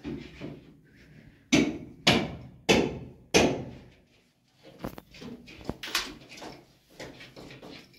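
Hammering during building work: four heavy blows about half a second apart, each ringing briefly, then a run of lighter, irregular knocks.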